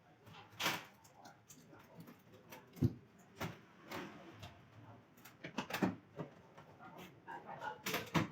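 Irregular knocks and clicks, a dozen or so, with a few louder thuds among them, like things being handled and set down.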